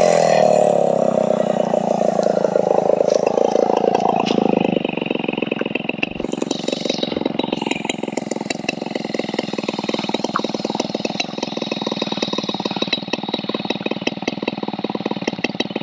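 Stihl 720 chainsaw coming off full throttle at the end of a cut: its engine pitch falls over the first few seconds, then settles into a steady, rapidly pulsing idle.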